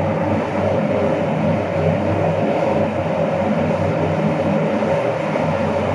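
Steady whirring drone of the fans and heaters blowing hot air through the room for a bed bug heat treatment, with a constant low hum under it.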